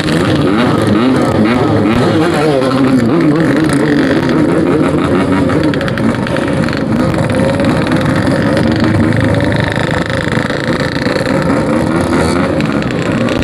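Two-stroke motorcycle engines running and revving, their pitch rising and falling again and again.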